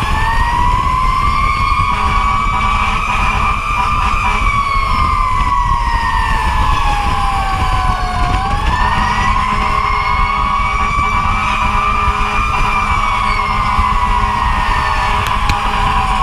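Fire truck siren wailing, its pitch climbing and then slowly sliding down twice, over the rumble and wind noise of the moving truck.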